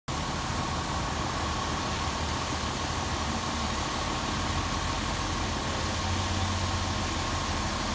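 Fire engine's diesel running steadily at pumping speed, feeding a hose stream, over the even hiss of water spray.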